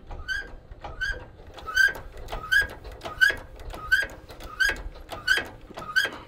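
Hand-pumped hydraulic tilt ram on a trailer squeaking once with each pump stroke, a steady rhythm of about nine short, high squeaks, roughly one every 0.7 s, as the deck is pumped up to tilt.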